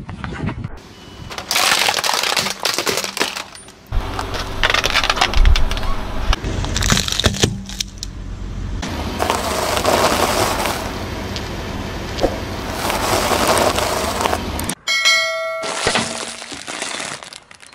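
A car tyre rolling slowly over objects and crushing them one after another: plastic cracking, crunching and snapping under the wheel, with a low engine rumble underneath for much of it. Near the end a short bright chime sounds.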